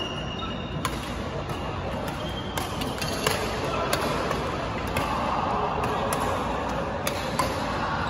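Badminton rackets striking a shuttlecock in a fast doubles rally: a string of sharp clicks, roughly one or two a second, over a steady hall noise.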